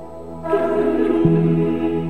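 Live music: a choir singing a held chord with accompaniment, swelling in about half a second in, with a deep bass note joining a moment later.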